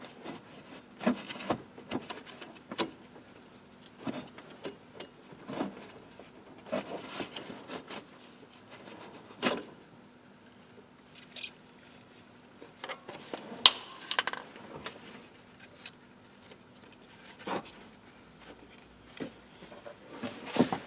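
Scattered clinks, knocks and rubbing as a ribbed serpentine (auxiliary) belt is worked off the engine's pulleys while the belt tensioner is held up with a socket wrench.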